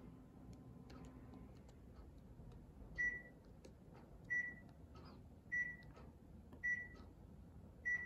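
Five short, high beeps about a second and a quarter apart, beginning about three seconds in. They come from a Panasonic CS-222CF-W room air conditioner, one beep to acknowledge each temperature-up press on its remote. Faint clicks of the remote's buttons are heard around them.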